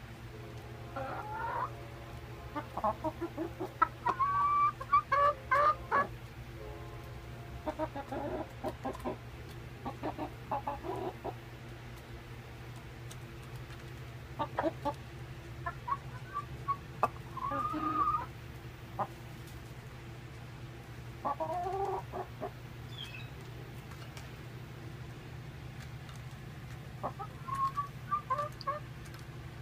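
Young Rhode Island Red and Barred Rock hens clucking and calling in short bouts every few seconds, with a few sharp taps, over a steady low hum.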